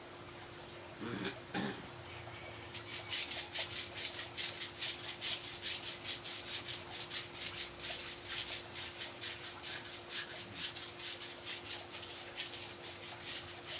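Quick, rhythmic rubbing strokes of hands massaging a patient's skin, about three or four a second, with a short voice sound about a second in and a faint steady hum underneath.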